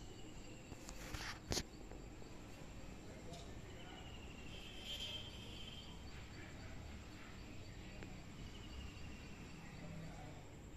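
Faint outdoor background with a steady, evenly repeating high chirping, a brief warbling call about five seconds in, and one sharp click about one and a half seconds in.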